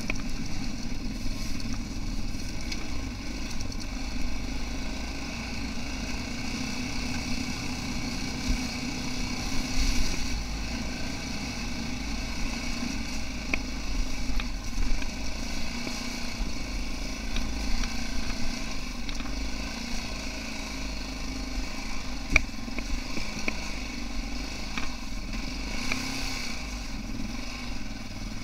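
Yamaha XT660R's 660 cc single-cylinder four-stroke engine running at fairly steady revs as the motorcycle rides over snow. A few sharp clicks come through, the loudest about three-quarters of the way in.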